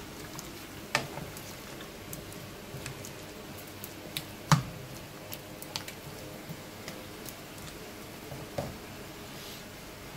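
Wooden spoon stirring chunks of chicken and potato in a pan of simmering curry, wet squishing over a faint steady simmer, with scattered clicks of the spoon against the pan; the loudest knock comes about four and a half seconds in.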